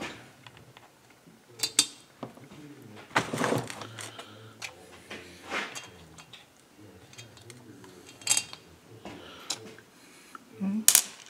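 Metal clinks and clunks of tools and engine parts being handled while the cylinder is fitted onto a Stihl MS 391 chainsaw's crankcase: a handful of separate sharp knocks spread through the stretch.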